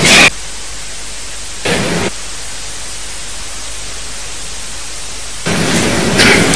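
Steady static hiss, broken by short, louder bursts of noise that start and stop abruptly: one at the very start, one about two seconds in, and a longer one from about five and a half seconds on.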